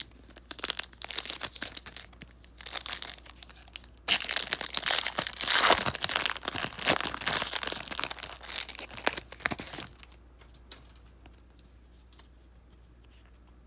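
A football trading card pack's wrapper being torn open and crinkled, with sharp crackles and rustling that grow loudest midway and stop about ten seconds in.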